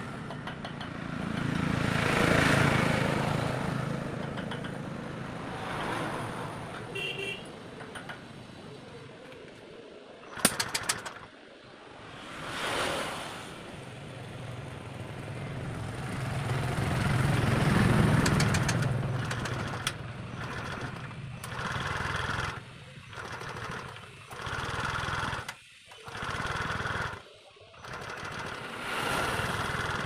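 Motor vehicles passing by, each one rising and fading over a few seconds, with a few sharp metal clinks of hand tools on a motorcycle engine about ten seconds in. In the last third, short noises about a second long start and stop repeatedly.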